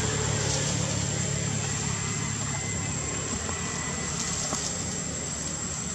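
Steady low engine hum, like a motor vehicle idling, under a continuous thin high-pitched tone, with a few faint clicks.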